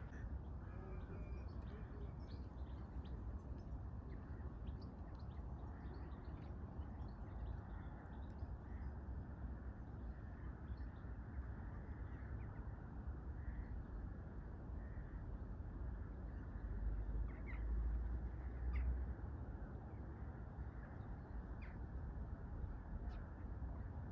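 Faint, scattered bird calls over a steady low rumble of outdoor background noise, the rumble swelling for a couple of seconds past the middle.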